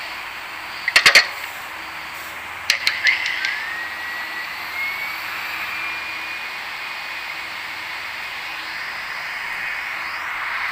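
Stand mixer with a wire whip beating egg yolks on high. A few sharp clicks in the first three seconds, then a steady motor whine that rises in pitch as the mixer comes up to speed and holds, over a steady rushing noise.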